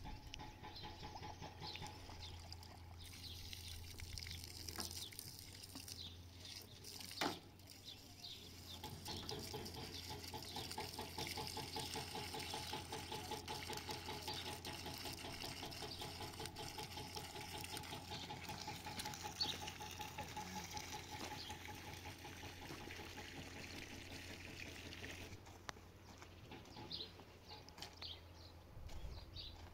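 Water poured from a metal pan through a funnel into a cloth-wrapped plastic jug: a faint, steady trickle and gurgle that stops near the end. Birds chirp now and then.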